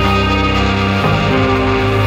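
Background music: held chords that change about a second in.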